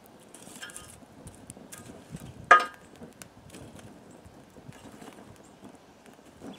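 Metal tongs knocking and scraping burning wood chunks in a steel wheel-rim fire pit, with one loud ringing clank about two and a half seconds in. Small crackles and clicks from the wood fire.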